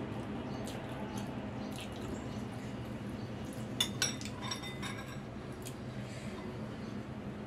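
Metal fork and spoon clinking and scraping against a ceramic soup bowl, with two sharp ringing clinks about four seconds in, over a steady low hum.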